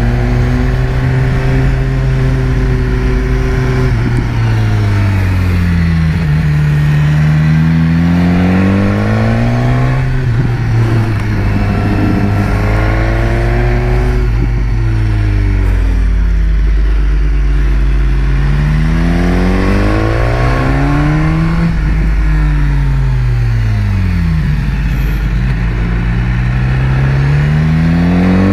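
BMW S1000R's inline-four engine heard from the rider's own bike, repeatedly rising in pitch as it accelerates out of bends and falling away as the throttle is closed for the next.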